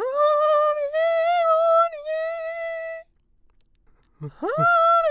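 High-pitched cartoon character voices wailing in long held cries with a wavering pitch. One wail rises in at once and holds, breaking briefly before it stops about three seconds in. After a short hush a second wail glides up and holds near the end.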